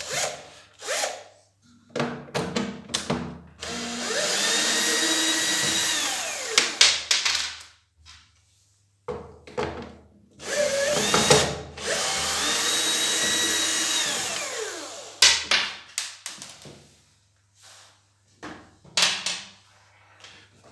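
Power drill-driver backing out Torx T20 screws from plastic housing: two long runs, each whining up to speed, holding steady, then winding down, with short clicks and knocks of handling in between.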